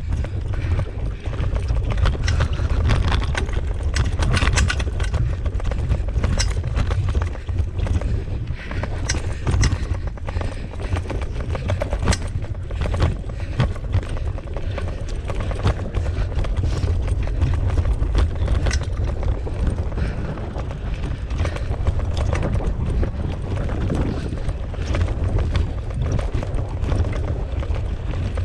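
Wheels of a rig pulled by a team of Siberian huskies rolling over a bumpy dirt trail: a steady low rumble with frequent rattles and knocks.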